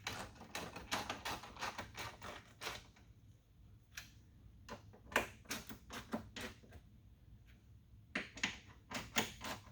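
Ratchet wrench clicking in quick runs as the truck door mirror's 10 mm mounting nuts are snugged up. A dense run of clicks at the start, scattered clicks in the middle, and another run near the end.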